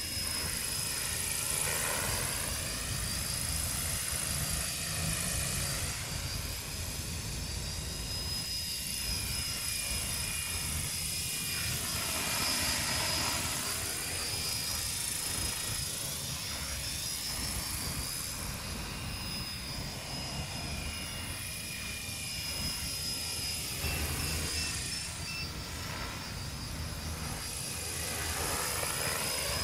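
A radio-controlled coaxial helicopter with a brushless electric motor in flight: its two counter-rotating rotor heads whir over a steady high-pitched motor whine. The sound swells and its pitch dips and rises again a few times as it flies.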